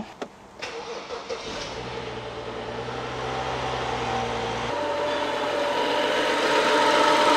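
BMW 535i GT's 3.0-litre turbocharged straight-six starting about half a second in and then idling steadily, with no unusual noise.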